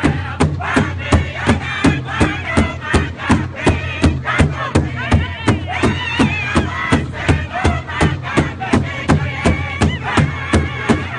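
A powwow drum group singing together over a large hide powwow drum, the men's voices carried by steady, even unison drumbeats at about three beats a second.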